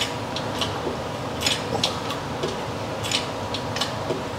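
A string of light, sharp clicks and ticks at irregular spacing, roughly two a second, over a steady low hum.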